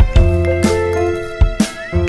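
Background music: held notes over a bass line that changes pitch, with a sharp drum hit about once a second.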